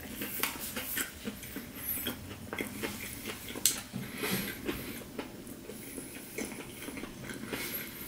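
A person chewing a mouthful of crispy fried chicken sandwich, with crackly crunching of the breading and wet mouth sounds, and one louder crunch a little over three and a half seconds in.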